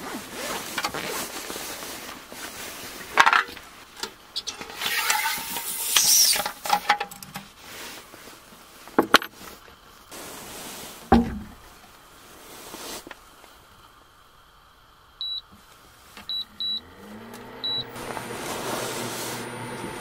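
Irregular rustling, clatter and knocks of things being handled, with one heavy thud midway. Near the end come four short high beeps, then a small motor winds up into a steady hum.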